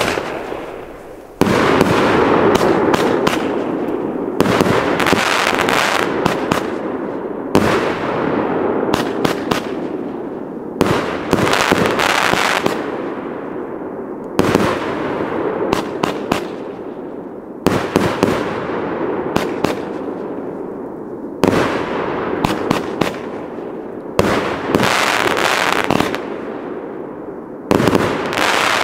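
Firework cake (battery) firing a sequence of shots: about nine sudden bangs roughly three seconds apart, each followed by several seconds of fading noise and clusters of sharp cracks as the shells burst.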